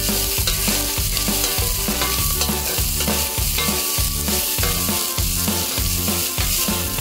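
Onion, garlic and ginger sizzling as they sauté in rendered chicken fat, stirred in the pot. Steady low pitched tones that change in a regular rhythm run underneath.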